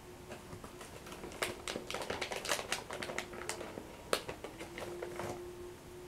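A crunchy biscuit crunching and cracking close to the microphone: a quick, irregular run of crisp clicks and snaps that starts about a second and a half in and stops shortly before the end. One sharp crack about four seconds in is the loudest.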